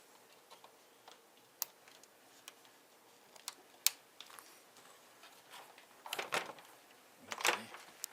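Things being handled by hand: a few sharp, light clicks scattered through the quiet, then two brief rustles, the second near the end.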